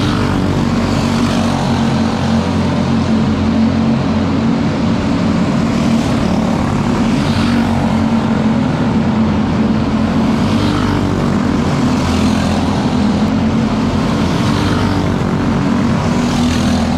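Racing kart engine running at steady high revs on a dirt oval, the drone holding with small rises and dips.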